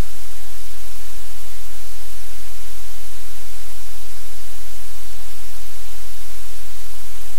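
Loud, steady static hiss over a low hum, unchanging throughout, with no separate sounds standing out.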